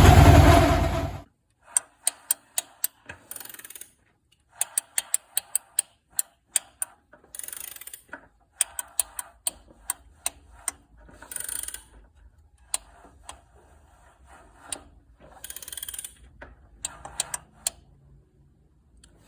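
Honda CX500 V-twin engine running loudly, then cutting off abruptly about a second in. It is followed by scattered sharp clicks and short rustling bursts.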